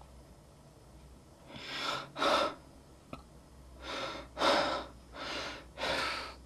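A man breathing audibly close to the microphone: after a quiet first second and a half, about six short, airy breath sounds in three pairs, in and out.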